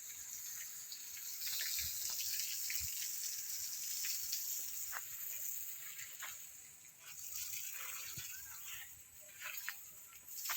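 Steady high hiss with scattered light clicks and crunches, as of someone walking outdoors.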